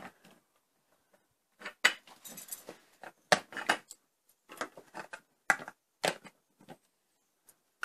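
Hard plastic toy figures and a plastic toy car from a Space Quest preschool set being handled, giving a series of irregular clacks, knocks and short scrapes as the figures are set in and out of the car and down on the table.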